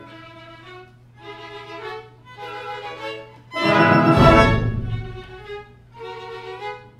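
Orchestra playing live: short, quiet phrases led by the violins, separated by brief pauses, with a loud full-orchestra passage about three and a half seconds in that reaches down into the deep bass before the quiet phrases return.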